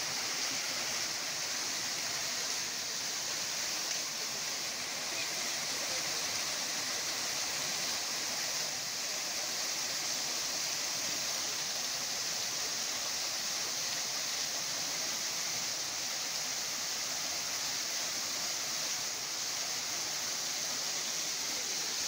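Small waterfall spilling over rock ledges into a shallow stream: a steady, even rush of water with no break.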